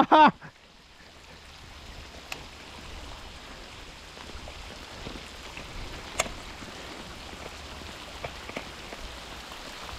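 Heavy rain in a sudden downpour: a steady hiss of rainfall that builds over the first couple of seconds, with a few sharp ticks of drops striking close by.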